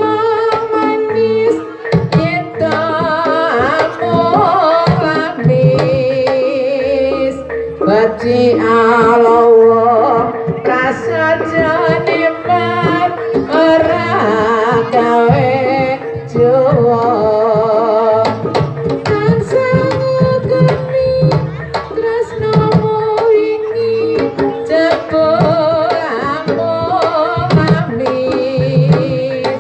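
Live jaranan (kuda lumping) music: hand drums beat a rhythm under a wavering, ornamented melody line and singing, with a steady held tone beneath.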